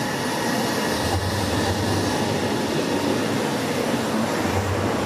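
NordWestBahn class 440 electric multiple unit (Alstom Coradia Continental) rolling past at low speed, a steady rumble of wheels and running gear with a low hum that swells twice.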